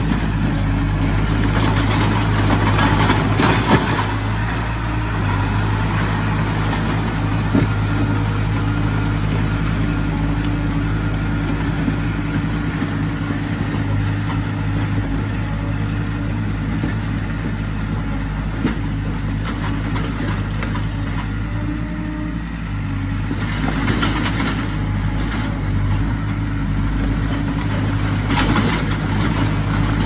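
Komatsu D20P bulldozer's diesel engine running at a steady speed, with short surges of rougher noise a few seconds in and again near the end.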